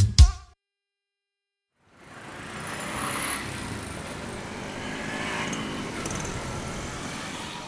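Music cuts off abruptly, and after a second or so of silence, street ambience with traffic fades in and runs steadily.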